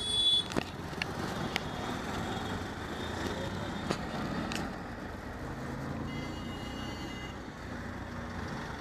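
Busy road traffic heard from inside a moving auto-rickshaw: a steady rumble of engines and tyres. A short, loud vehicle horn sounds right at the start, a few sharp clicks or knocks follow over the next few seconds, and a fainter horn sounds about six to seven seconds in.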